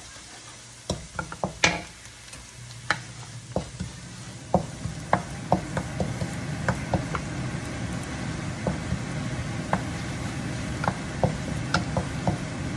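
Two wooden spatulas stirring and tapping in a non-stick wok, sharp irregular clicks of wood on the pan over the sizzle of finely minced ingredients frying. The sizzle grows louder after the first couple of seconds.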